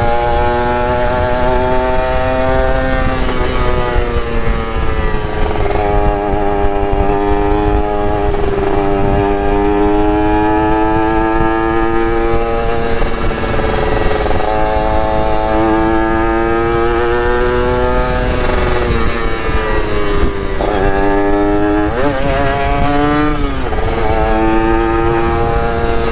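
Yamaha RX-King's 135 cc single-cylinder two-stroke engine under way, its revs climbing and falling several times as the bike accelerates, shifts and eases off, with a low rushing noise beneath.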